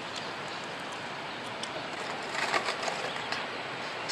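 Skateboard wheels rolling over rough ground, a steady grainy hiss with a quick run of clicks and clacks in the middle and a sharp clack at the very end.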